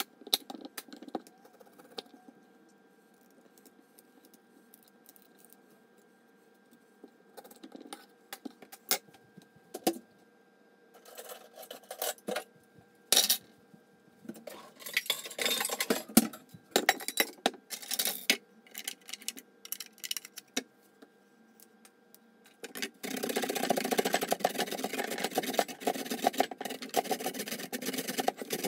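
Scattered knocks and clicks of a knife and a root vegetable on a wooden cutting board. In the last six seconds this gives way to a steady, rapid rasping as the root is rubbed back and forth on a metal grater.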